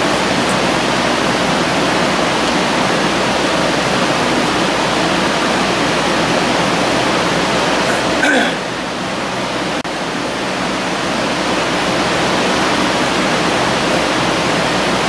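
Steady, even rushing background noise, like a fan or air handler, with one brief knock or scrape about eight seconds in.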